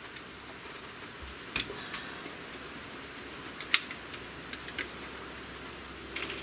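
Handling of a Hatsan Torpedo 150 Sniper under-lever air rifle as it is readied for the next shot: a few light clicks and knocks, the sharpest a little before the four-second mark, over a steady faint hiss.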